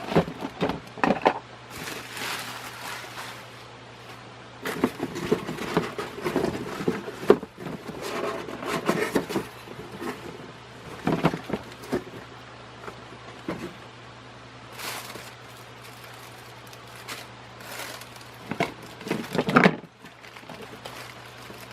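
Handling noise from ceiling fan parts and packaging: irregular rustling, clicks and light knocks of plastic and cardboard being moved about, over a steady low hum.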